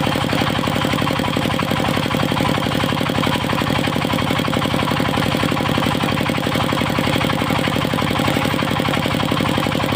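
The stationary engine of a circular sawmill running steadily with an even, fast pulsing beat.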